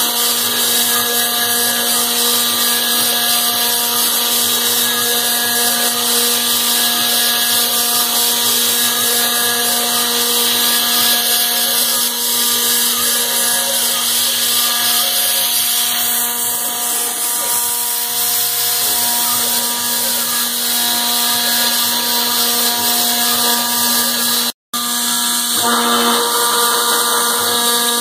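CAMaster CR-304 CNC router spindle running steadily while milling aluminum: a high-pitched whine of steady tones over a loud hiss of cutting. It breaks off briefly near the end and picks up again.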